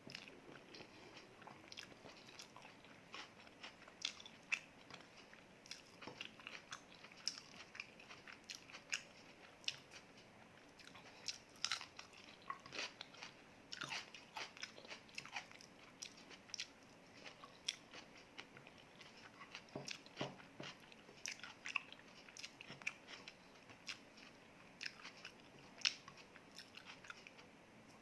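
Close-miked chewing and biting of food, with many short crunchy bites and mouth clicks scattered irregularly throughout.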